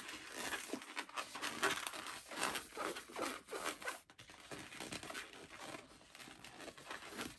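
Pink latex twisting balloon squeaking and rubbing as hands twist off two small bubbles, in irregular strokes with short squeaks.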